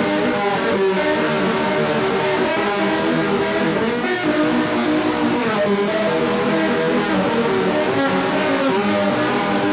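Instrumental music: an electric guitar playing along with a full backing track, steady in level.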